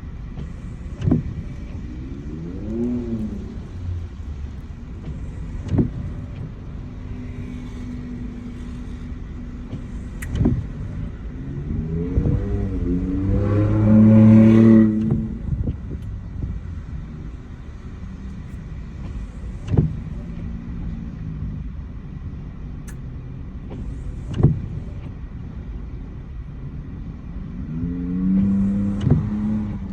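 Steady car road noise, with a sharp click about every five seconds. Three short tones rise and fall in pitch, the loudest about halfway through.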